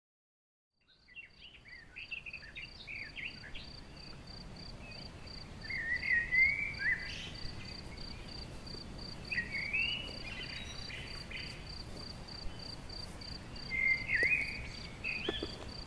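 Meadow ambience fading in about a second in. An insect, cricket-like, chirps steadily in high even pulses about three a second. A bird sings short, quick phrases over it four times, loudest about six seconds in and near the end.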